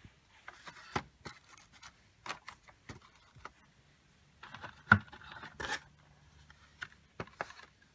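Handling noise of vintage toy stamps and their packaging being picked up and turned over: scattered clicks, light knocks and scraping rustles, with one louder knock about five seconds in.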